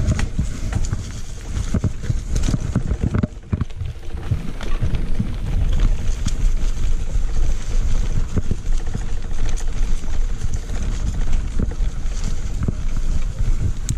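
Wind buffeting the microphone as a mountain bike rolls fast down a dirt trail, a steady low rumble with tyre noise and frequent short rattles and knocks from the bike going over bumps.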